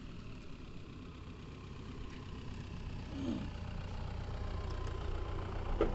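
An engine idling: a low, steady hum that grows slowly louder.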